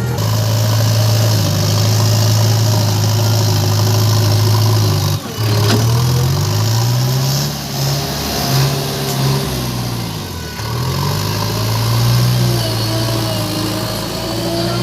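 Diesel engine of the earthmoving machinery running steadily, then revving up and down repeatedly for about five seconds in the middle before settling back to a steady run.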